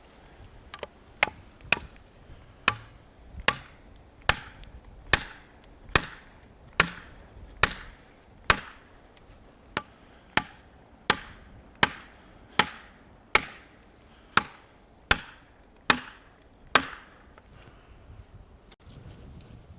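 Heavy blows struck into wood in a steady rhythm, about twenty strikes a little under a second apart, stopping a few seconds before the end.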